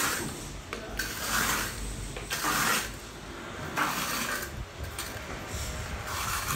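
Steel trowel scraping mortar along the base of a rough cement wall, in short repeated strokes about once a second.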